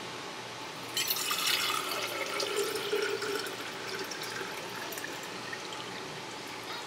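Water running from a tap, starting about a second in and easing off gradually.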